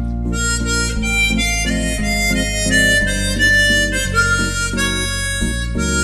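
Harmonica playing a flowing melody, note after note, over an accompaniment of sustained low bass notes.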